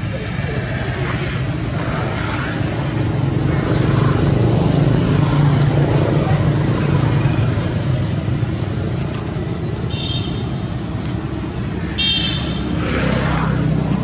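A motor vehicle engine running steadily as a low hum, swelling a little in the middle. Two short high-pitched squeals come through about ten and twelve seconds in.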